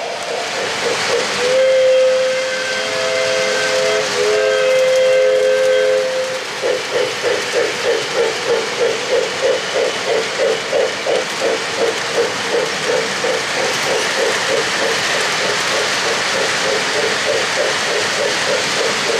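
O-gauge model locomotive's electronic sound system blowing a steam whistle in two long chord blasts, then a fast pulsing at about three beats a second over a steady hiss as the train runs.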